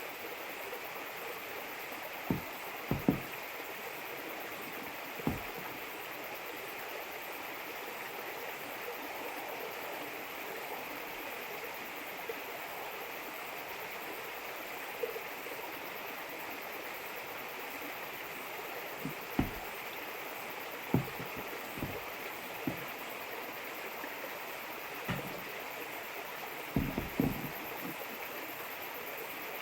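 A steady rushing hiss runs throughout, with scattered sharp knocks in small clusters, the loudest near the start and around the twentieth second.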